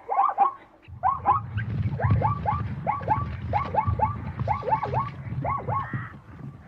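Zebra calling: a long run of quick, squeaky yelping barks, about three or four a second, with a short break about half a second in. A low rumble sits under the calls from about a second in.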